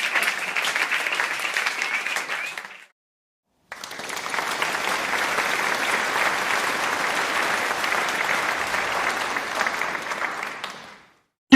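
Applause from a crowd, a dense steady clatter of clapping. It cuts off abruptly about three seconds in, and after about a second of silence a second round of applause starts suddenly, holds steady, and fades out near the end.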